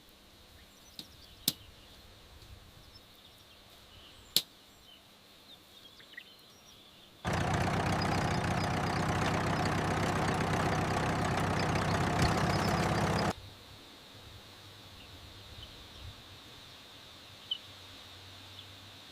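A motor running steadily for about six seconds, starting and stopping abruptly in the middle, between stretches of quiet outdoor ambience with a few sharp clicks.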